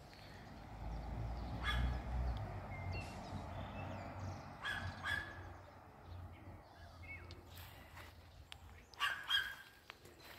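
Outdoor garden sound: short bird chirps over a low rumble, with a few sharp louder sounds about two, five and nine seconds in.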